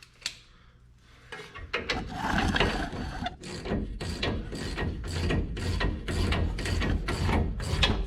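Hand ratchet wrench turning a nut on a truck's outer tie rod end, clicking about three times a second from about three seconds in, after some scraping and handling of the tool.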